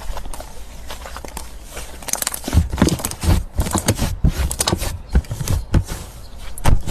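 Slime being squeezed and poked by hand: a run of sticky clicks and crackling pops, with louder, deeper squishes from about two and a half seconds in.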